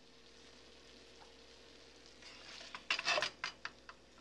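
Two quarter-pound beef burger patties frying in a nonstick pan. A faint sizzle swells a little past halfway, then breaks into a quick run of about eight sharp crackles over about a second.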